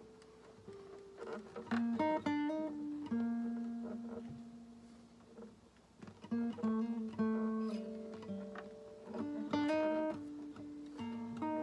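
Acoustic guitar played slowly, in short phrases of plucked notes and chords that are left to ring and fade before the next phrase.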